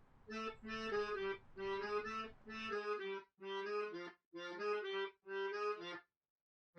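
A short music cue on a free-reed instrument like an accordion: about seven short, evenly paced chords, which cut off abruptly about six seconds in.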